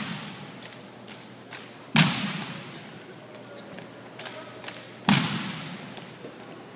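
Two loud, sharp impacts about three seconds apart, each echoing through a large arena: an armed drill squad striking the floor in unison during an exhibition drill routine. Fainter clicks of rifle handling come between them.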